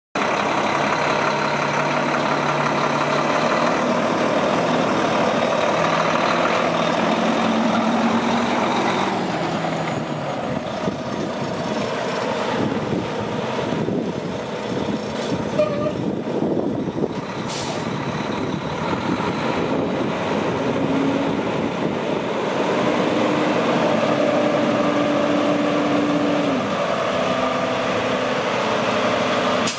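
Volvo D13 12.8-litre diesel engine of a tandem-axle day cab tractor running, its pitch stepping up and down with engine speed. A short hiss of air comes from the brakes a little past halfway.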